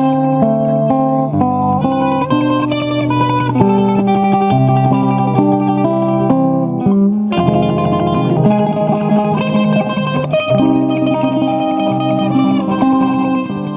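Nylon-string classical guitar and mandolin playing together, a picked melody over plucked guitar chords.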